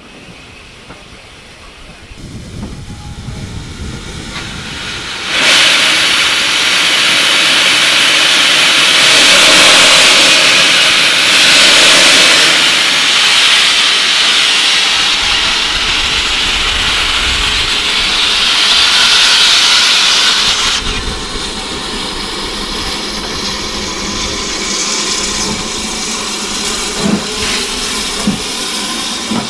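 A steam locomotive venting steam. About five seconds in, a loud, steady hiss starts suddenly and holds for about fifteen seconds, then falls to a softer hiss that keeps going.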